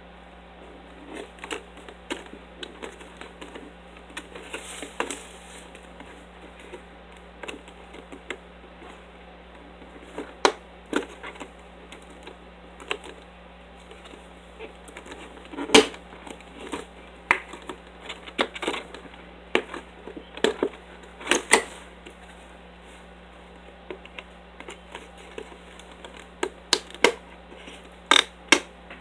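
Hands handling a clear plastic retail box: irregular clicks, taps and crackles of the plastic, with the loudest snaps about 16 and 21 seconds in. A steady low hum runs underneath.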